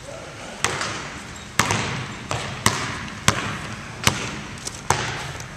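A basketball bouncing on a hardwood gym floor, with sharp impacts roughly once a second and a few softer ones between. Each bounce echoes in the large hall.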